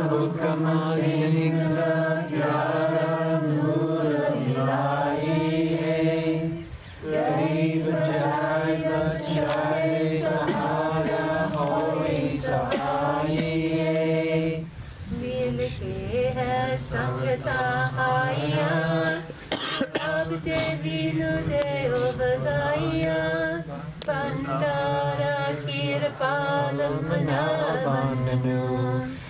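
Devotional hymn sung in long, held phrases over a steady low drone, with short breaks between lines a few times.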